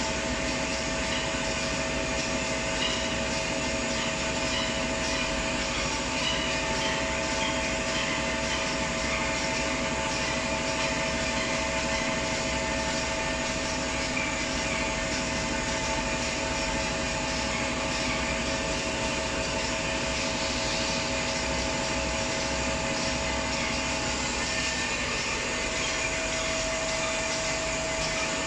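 A 300-size napkin paper folding and two-colour printing machine running steadily: a constant mechanical hum with several steady whining tones.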